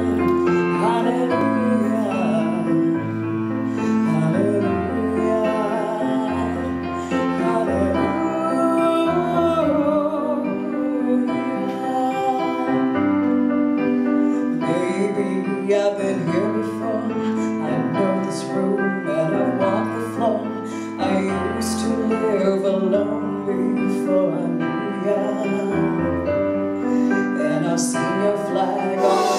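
A woman singing into a microphone with piano accompaniment.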